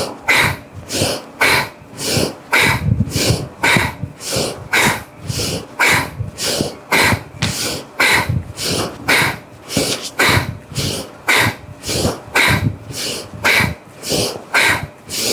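Bhastrika bellows breathing: forceful, rhythmic in- and out-breaths, each a sharp rush of air, about one full breath a second.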